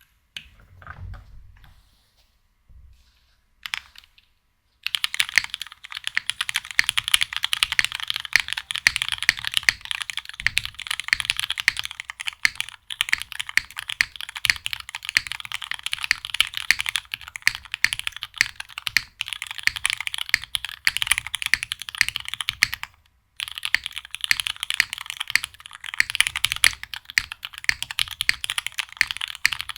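Custom 60% mechanical keyboard with lubed Cherry Hyperglide Black linear switches, an aluminium plate and GMK keycaps being typed on fast and continuously. The typing starts about five seconds in and stops briefly near the 23-second mark before resuming.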